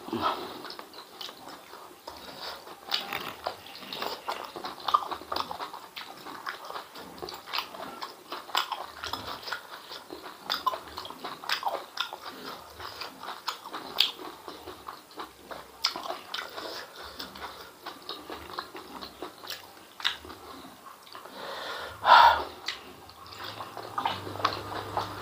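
Close-miked chewing and lip-smacking of chewy spicy intestines with rice, eaten by hand: many irregular wet clicks and smacks, with one louder burst near the end.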